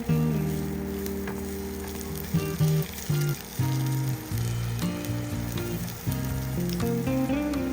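Egg and bean sprout mixture sizzling as it fries in hot oil, with background music of held melodic notes over it.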